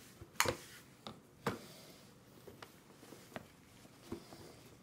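A spoon knocking and scraping against a baby's plastic suction bowl and high-chair tray: a few sharp clacks, the loudest about half a second in and another about a second and a half in, then lighter taps.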